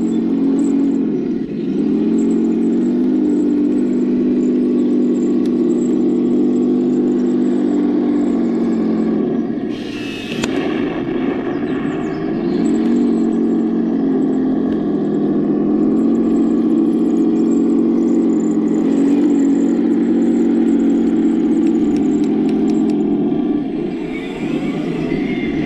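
Heng Long RC tank's onboard sound unit playing a simulated tank engine through its small speaker, with the pitch rising and falling slightly as the throttle changes. A short noisy burst comes about ten seconds in.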